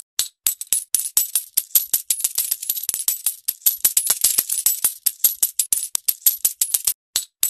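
A shower of metal coins falling and clinking onto a pile: a dense, irregular run of bright jingling clinks, broken by two brief gaps, one just after the start and one near the end.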